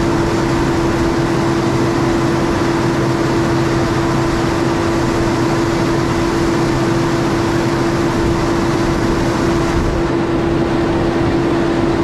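Steady, unchanging motor noise with one constant mid-pitched hum and a fainter low hum beneath it.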